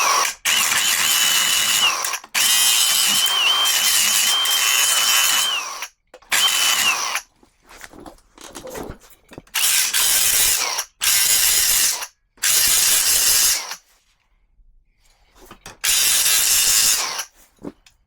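Power drill boring a stop hole into the snowblower's cracked metal housing, run in about seven start-stop bursts with a steady motor whine. The hole goes just beyond the end of the crack to stop it spreading before welding.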